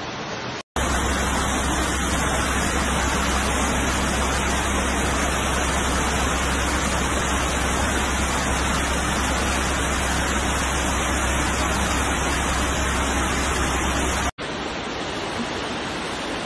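Floodwater rushing through a city street as a loud, steady torrent of water noise with a deep low rumble. The sound cuts out abruptly twice, less than a second in and near the end.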